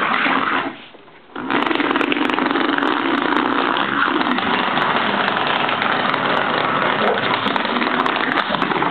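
Vibrating ladybug massager buzzing on a wood floor: a short buzz under a second long, a brief stop, then it starts again about a second and a half in and buzzes steadily.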